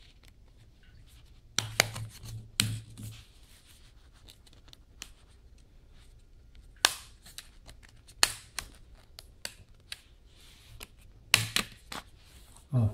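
Tight snap-on plastic back cover of an Elephone P8 smartphone being pried off by hand: several sharp plastic clicks, with fingernail scratching along the edge between them.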